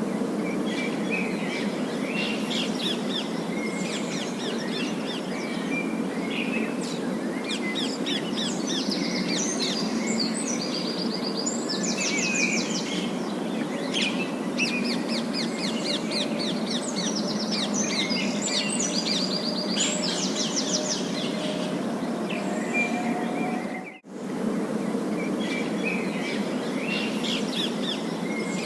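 A flock of parakeets chattering continuously with rapid trilling and warbling calls over a steady low background hiss. The sound cuts out for an instant near the end.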